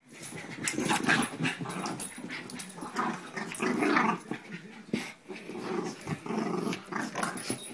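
Dogs play-growling as they wrestle, in uneven bursts of growls that come and go throughout.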